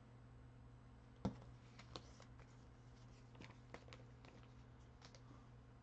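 Near silence: faint scattered clicks and taps of handling at a desk, one sharper click about a second in, over a steady low hum.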